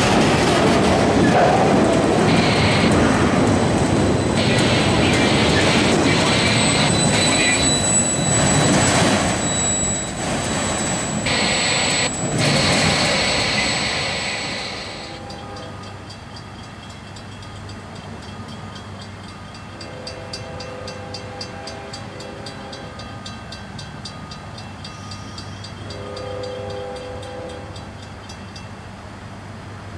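Freight train of autorack cars rolling past close by: steel wheels on rail, with a thin high wheel squeal for a few seconds. The noise drops away about halfway through, leaving a quieter steady background with fast high ticking.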